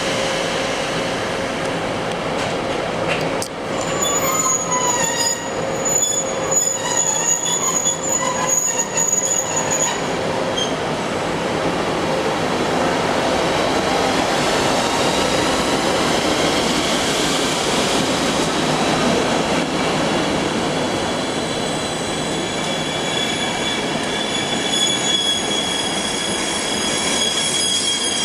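ÖBB class 1142 electric locomotive and its Intercity coaches pulling away slowly at departure, with a steady rolling noise throughout. High-pitched wheel squeal comes in from about four seconds in and lasts several seconds, then sets in again near the end.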